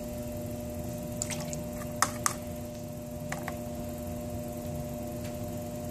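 Potter's wheel motor humming steadily while a needle tool cuts into the spinning wet clay, with a few wet squishes and sharp clicks; the loudest two clicks come about two seconds in. The tool is splitting the thick rim of a lid into two walls to form its flange.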